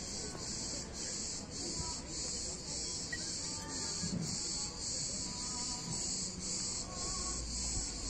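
Cicadas singing in a chorus from the trees: a steady high buzz that pulses about twice a second.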